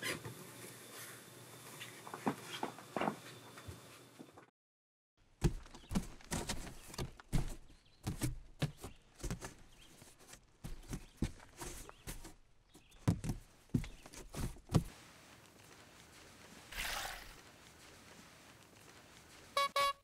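Footsteps: an uneven run of sharp steps that starts after a brief cut to silence and goes on for about ten seconds. After the steps it goes quieter, with a short whoosh near the end.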